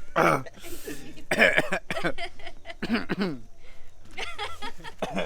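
Coughing and throat clearing mixed with chuckling and laughter, the reaction to a swallow of strong fermented nance chicha.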